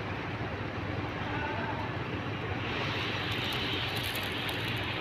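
Steady low rumble of outdoor background noise, like a distant engine or traffic, with a hiss that grows about halfway through.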